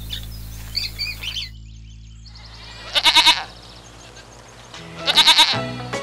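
A goat bleating twice, a wavering call of about half a second near the middle and another about five seconds in. Small birds chirp during the first second or so.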